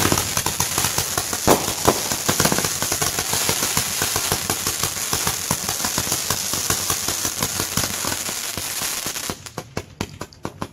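Firecrackers going off in a dense, rapid string of sharp pops, a few louder ones in the first seconds, thinning to scattered pops near the end.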